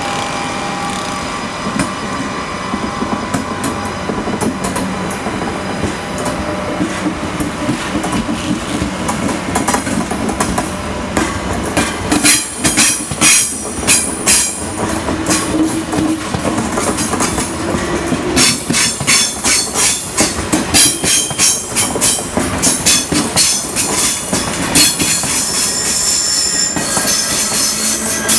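TGV POS high-speed trainset rolling slowly along the platform, a steady rumble at first, then its wheels clacking over rail joints and points from a little under halfway in, the clacks coming faster and more often in the second half. Thin high wheel squeals come in near the end.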